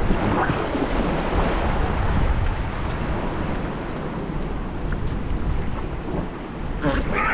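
Whitewater rapids rushing in a steady roar, with wind buffeting the microphone. A voice calls out briefly near the end.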